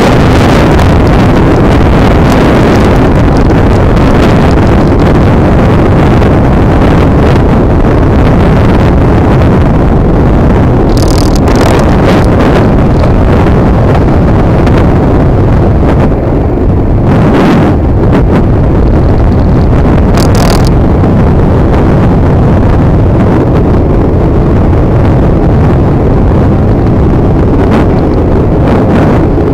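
Loud, steady wind buffeting the microphone of a moving electric scooter, with a few brief hissier flares along the way.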